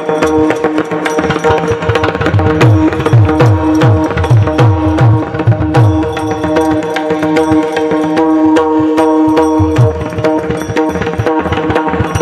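Devotional Marathi kirtan music: a harmonium-like instrument holding steady notes over fast hand-drum playing, whose bass strokes slide down in pitch, with sharp metallic clicks of small hand cymbals keeping the beat.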